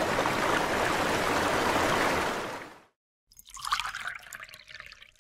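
Running-water sound effect: a steady rushing trickle that swells in, holds for about two seconds and fades out. After a brief silence, a fainter, shorter sound with a light tone follows.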